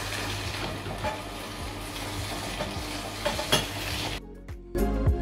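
Horizontal slow (masticating) juicer running with a steady low motor hum and crackling as celery is pressed into the auger with the plunger; it cuts off about four seconds in, and background music with a steady beat starts near the end.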